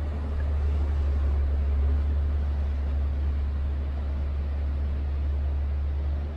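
Steady low rumble with an even hiss above it, from the cruise ship Norwegian Pearl under way. The sound starts abruptly and cuts off near the end.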